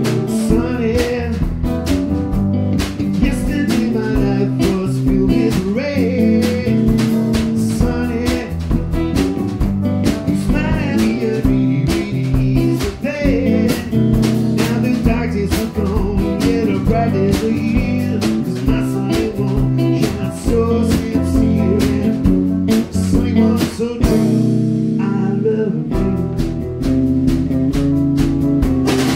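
A small live band playing together: electric guitar, electric bass, drum kit and keyboard, with bending guitar lead lines over the groove. About three-quarters of the way through, bass and drums drop out for a moment before the full band comes back in.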